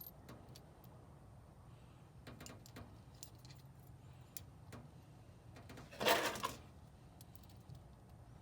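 Scattered light clicks and clinks of small hard objects, with one louder rattling clatter about six seconds in, over a steady low hum.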